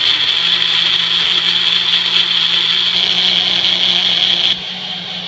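Single-serve personal blender running steadily, blending ice cream and blueberries into a smoothie. About four and a half seconds in it drops to a quieter steady whir.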